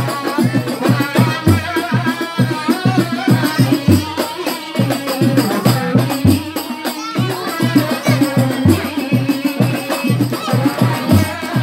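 Music with a steady, fast drum beat and rattling percussion under a singing voice.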